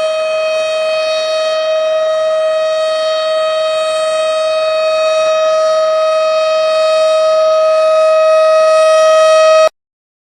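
Tornado warning siren sounding one steady, unwavering tone rich in overtones, growing slightly louder, then cutting off abruptly near the end.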